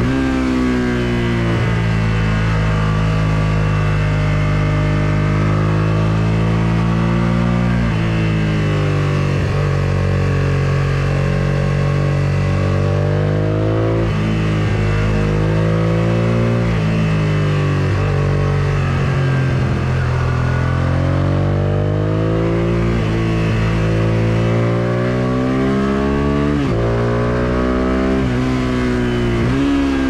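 1999 Suzuki SV650S 90-degree V-twin with an Akrapovic full exhaust, revving hard through a series of bends, its engine note climbing and falling several times as the throttle opens and closes, over wind rush at the rider's helmet.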